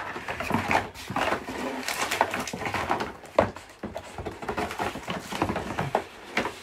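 White cardboard packaging being handled: irregular rustling, scraping and light knocks of card against card, with one sharp click about three and a half seconds in.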